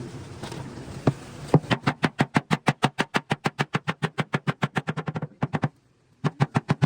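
A hammer tapping rapidly on car body sheet metal, about seven or eight even blows a second, in panel-beating to work out accident damage; the run stops for a moment near the end and starts again in two short bursts.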